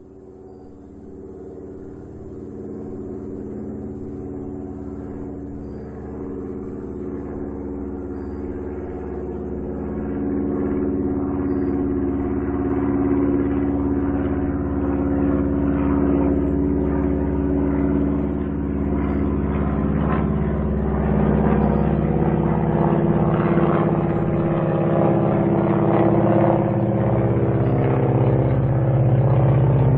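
Small propeller airplane's piston engine droning at a fairly steady pitch, growing steadily louder.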